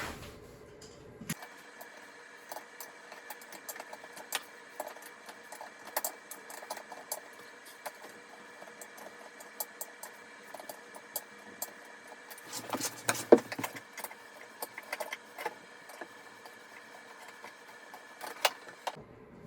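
Sped-up hand work on a toilet: many quick clicks and clinks over a steady hum, busiest about two-thirds of the way through.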